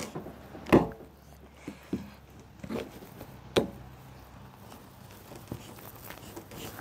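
Scattered knocks and scuffs as a capped PVC pipe is forced by hand through a rubber Uniseal in the wall of a plastic fish tank, the loudest knock about a second in and a few more over the next three seconds.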